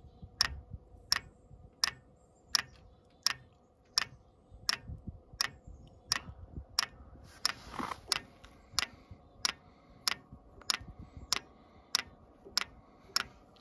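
VEVOR diesel heater's solenoid fuel dosing pump ticking steadily, about three clicks every two seconds, as it primes the fuel line.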